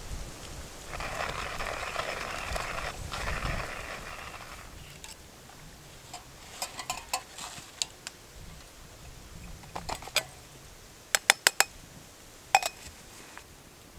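A rustling, hissing noise for a few seconds, then a scatter of sharp clicks and clinks of small hard objects being handled, with three quick ones together past the middle.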